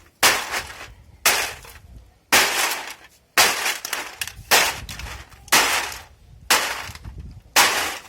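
Heavy blows struck about once a second, eight in all, each a sharp crash followed by a short crunching clatter, as of a heavy hand tool pounding material.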